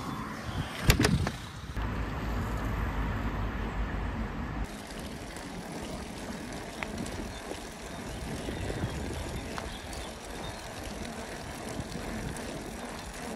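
Bicycle riding on a paved path, heard as a steady rush of wind and tyre noise. A few sharp knocks sound about a second in.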